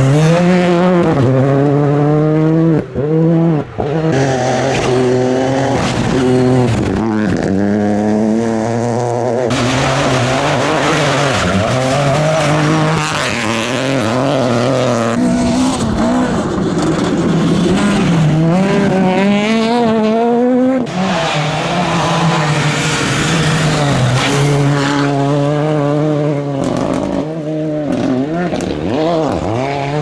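Several rally cars driven hard along a gravel stage one after another, their engines revving up and falling back through quick gear changes, with the tyres scrabbling on loose gravel.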